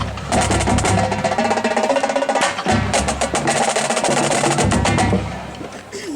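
Marching drumline playing a cadence: rapid snare strokes over low bass drum notes. It grows quieter about five seconds in.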